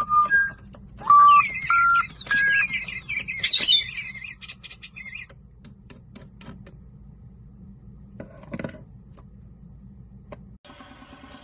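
Pet bird whistling a few short, steady notes at set pitches, mixed with quick chirps. A loud, sharp chirp comes about three and a half seconds in, and only faint clicks follow.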